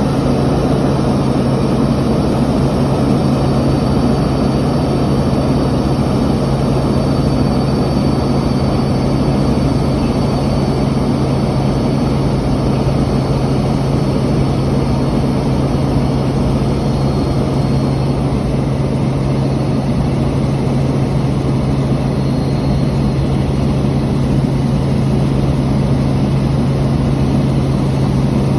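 Helicopter in flight heard from inside the cabin: steady engine and rotor noise with a strong low hum and a faint high tone above it.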